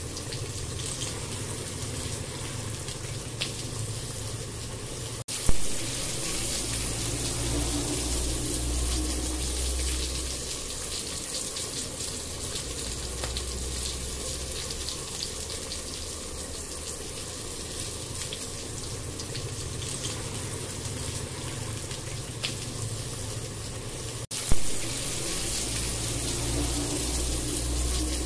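Onion-tomato masala sizzling and bubbling in a hot non-stick kadai with water just added, while a wooden spatula stirs it. There are two sharp clicks, about five seconds in and near the end.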